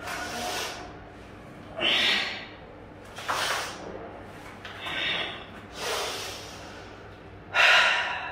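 A man breathing hard during a sun salutation (Surya Namaskar) sequence: about six audible breaths, each paced with a change of pose, the loudest near the end.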